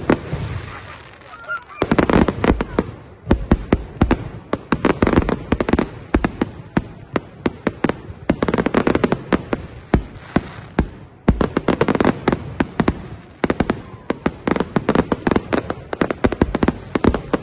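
Aerial fireworks display: rapid clusters of bangs and crackles from shells bursting, starting about two seconds in and going on with only brief lulls.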